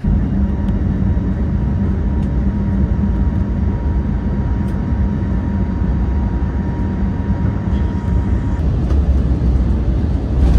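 Steady low rumble and drone of a vehicle in motion, heard from inside, with a faint steady whine that fades out about eight and a half seconds in.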